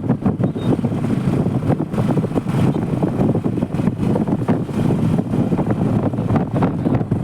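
Wind buffeting and rushing over the microphone on a moving motorcycle, a loud, rough rumble.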